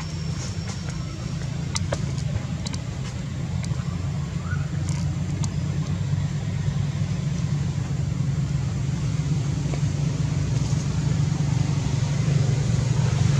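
An engine running steadily with a low hum that grows slowly louder, and a few faint clicks over it.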